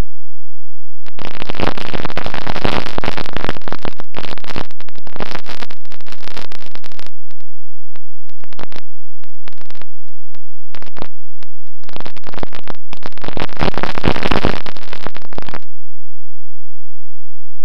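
Wind rushing over the onboard camera microphone of a Bixler model plane in flight, in two long, harsh, distorted bursts with short crackles between, over a faint steady low hum.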